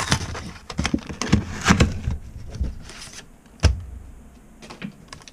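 Plastic blister packaging and foil Pokémon booster packs crackling and clicking as the packs are cut free and handled, with one sharp knock about three and a half seconds in. The handling then goes quieter.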